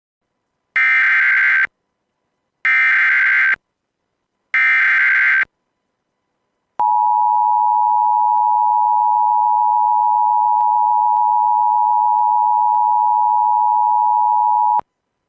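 Emergency Alert System SAME header: three short, buzzy data bursts, each just under a second long. It is followed by the steady two-tone EAS attention signal, held for about eight seconds before cutting off sharply, which marks the start of an Amber Alert broadcast.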